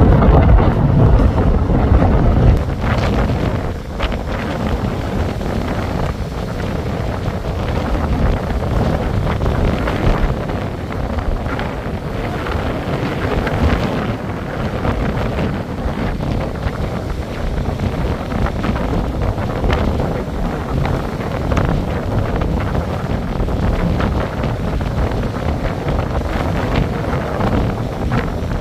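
Wind buffeting the microphone, with waves breaking on the beach. A strong gust at first eases about two and a half seconds in.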